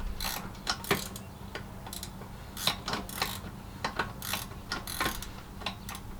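Hand tools and small metal parts clicking and clattering irregularly while something is being taken apart, over a steady low hum.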